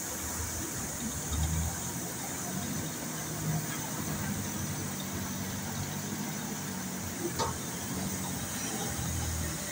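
Forklift engine running steadily, a low hum with a constant hiss above it and a single sharp click about seven seconds in.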